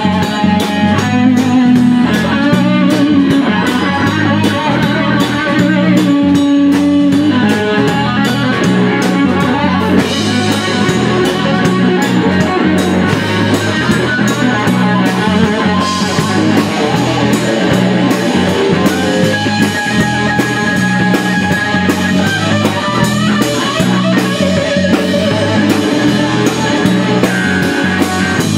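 Live rock band playing: electric guitar, bass guitar and drum kit, with a steady driving beat.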